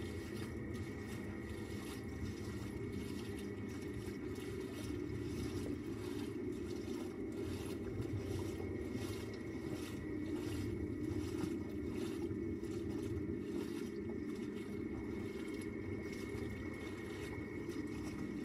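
Low, steady rumbling drone of an ambient electronic soundscape, with a thin high tone held over it and faint ticks repeating at a regular pace.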